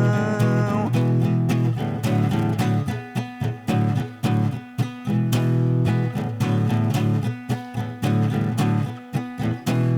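Guitar playing an instrumental passage of plucked notes in a choppy, uneven rhythm between sung lines. A held sung note dies away about a second in.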